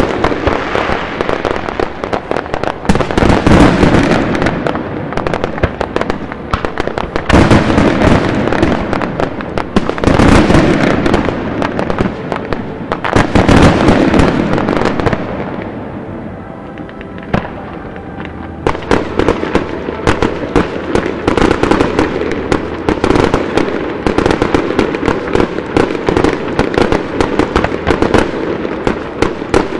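Fireworks display: many fireworks going off in a dense, rapid stream of bangs and crackle, rising in several louder swells. A quieter stretch comes about halfway through, then an unbroken rapid barrage of reports.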